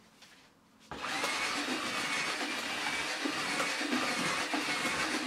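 A cordless drill with a mixing paddle starts about a second in, its whine rising briefly as it spins up, then runs steadily while it whisks damp groundbait in a plastic bucket to aerate it.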